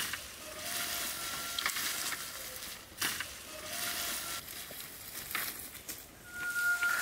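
Dry branches and brushwood rustling and crackling as they are handled and gathered, with scattered sharp twig snaps. A short whistle-like tone sounds a few times, loudest near the end.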